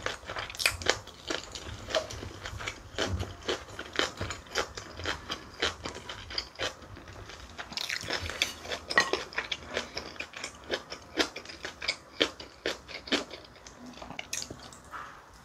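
Close-miked mukbang chewing: a mouthful of bibimbap (rice mixed with namul and gochujang) being chewed, with many small, irregular crunches and wet mouth clicks, several a second.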